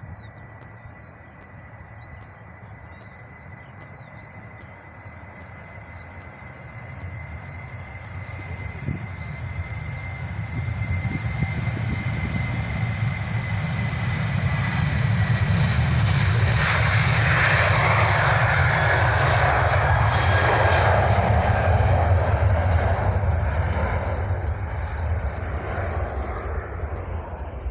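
A jet airliner's engines passing close by: the rumble grows steadily louder over about fifteen seconds, holds at its loudest for several seconds, then starts to fade. A steady high whine is heard in the first half.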